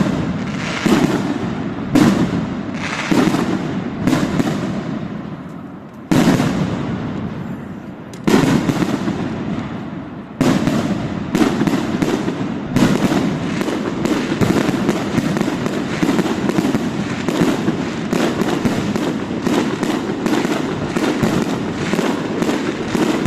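Fireworks display: shells burst with sharp bangs one after another, each fading away, about one every second or two. From about halfway through, a dense, rapid run of bangs and crackling follows.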